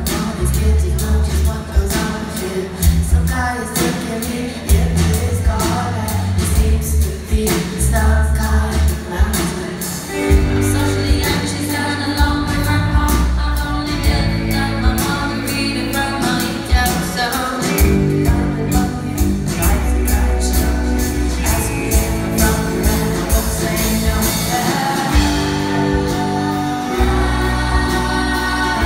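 Live rock band playing a song, with a singer's voice over loud bass and drums.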